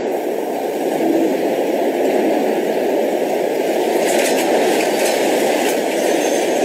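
Steady, loud rumbling noise, with faint rattling clicks from about four seconds in.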